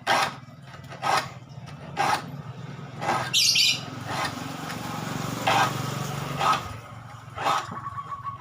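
Hand file rasping across handsaw teeth in short strokes about once a second, with a brief high-pitched squeak a little past three seconds in. The saw's teeth are being filed to turn a rip saw into a crosscut saw.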